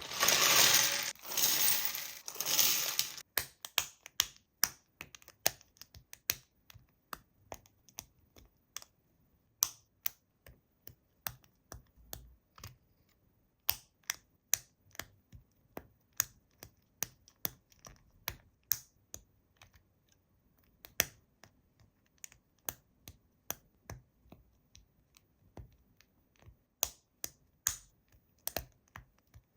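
Plastic packaging crinkling for the first few seconds, then a long, irregular run of small, sharp clicks and taps of hard plastic pieces being handled, about one or two a second.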